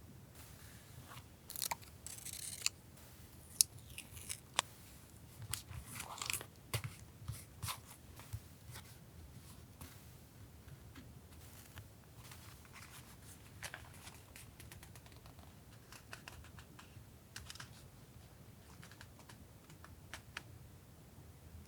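Paper-crafting sounds of journal collage: paper and stickers rustling and crinkling, with sharp taps and clicks, busiest for the first eight or nine seconds and then fainter, scattered ticks. A steady low hum runs underneath.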